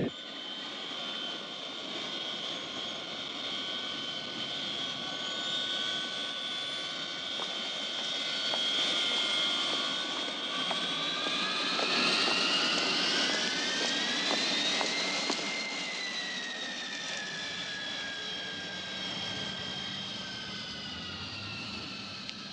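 Jet airliner engines whining, a stack of high tones that climbs in pitch about halfway through and then falls away again.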